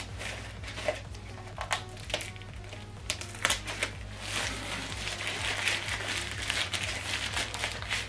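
Plastic packaging wrap crinkling and rustling in handfuls as wrapped soundbar sections are handled and pulled from a cardboard box, denser from about halfway through, over a steady background music bed.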